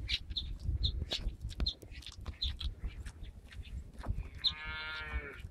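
A calf gives one moo, about a second long, near the end, over a background of repeated short, high bird chirps.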